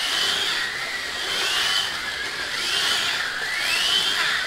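Electric motors of 1/43 scale rally slot cars whining as they run laps, the whistling pitch rising and falling over and over as the cars speed up on the straights and ease off for the turns.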